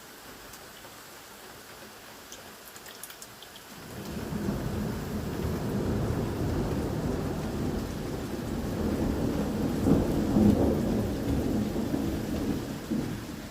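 Thunder rolling over steady rain: faint rain hiss at first, then about four seconds in a long low rumble builds, peaks about ten seconds in and eases off near the end.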